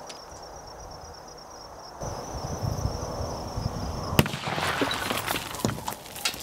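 A single sharp bang about four seconds in from a homemade quarter-stick firecracker of about 40 grams of flash powder going off inside a porcelain toilet, followed by scattered clicks and crackle as the pieces come down. A steady high insect buzz runs before the bang.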